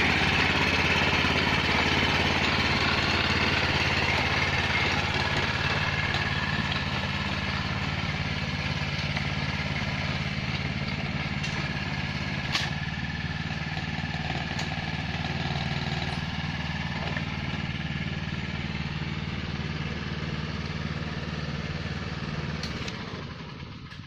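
Small engine of a rice transplanter running steadily, slowly growing fainter as it moves off, then dropping away near the end. A single sharp click about halfway through.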